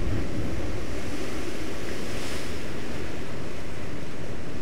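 Rough sea surf breaking and washing against lava rocks, a steady churning rush with wind rumbling on the microphone. A brief hiss of breaking spray rises about two seconds in.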